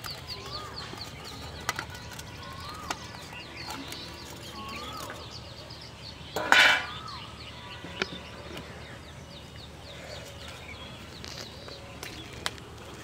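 Birds chirping around a pond, with a repeated rising-and-falling whistled call and a few sharp clicks. About halfway there is a brief, loud clatter.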